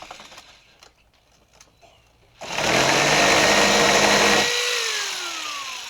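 A handheld electric power tool starts with a few clicks around it, runs loud and steady for about two seconds, then is released and winds down with a steadily falling whine.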